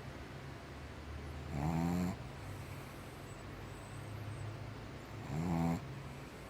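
A dog snoring: two snores about three and a half seconds apart, each a short tone rising in pitch, over a steady low hum.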